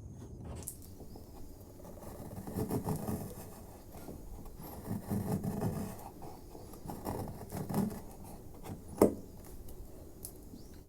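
A freshly sharpened hand chisel slicing thin shavings off the end grain of wood, in a few slow scraping strokes. One sharp click about nine seconds in.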